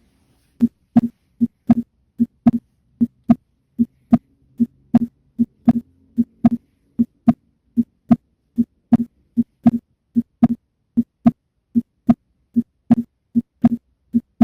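Human heart sounds auscultated at the pulmonic focus: a steady, regular lub-dub, each beat a close pair of first and second heart sounds, about 75 beats a minute. It starts a little over half a second in.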